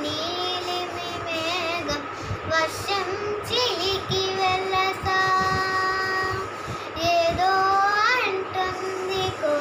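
A young girl singing solo without accompaniment, long held notes joined by wavering, sliding ornaments, with short breaths between phrases.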